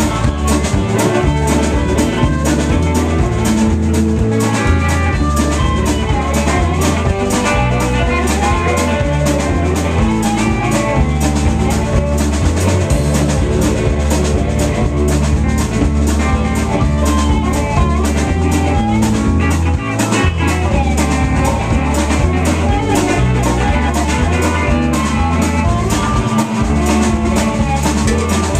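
Live blues band playing an instrumental stretch: harmonica cupped against a handheld microphone, over a drum kit keeping a steady beat and guitar.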